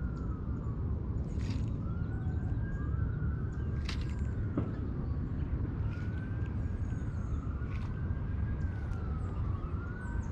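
A faint emergency-vehicle siren wailing, its pitch rising and falling about every two seconds, over a steady low rumble with a few short clicks.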